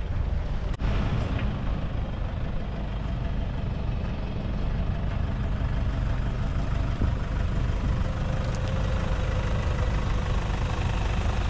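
Steady low rumble of a running vehicle, engine and motion noise without a break.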